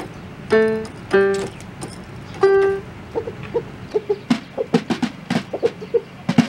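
Toy electronic keyboard sounding three separate notes as chickens peck its keys. From about three seconds in, quick irregular taps of chickens pecking grain off a tom drum's head.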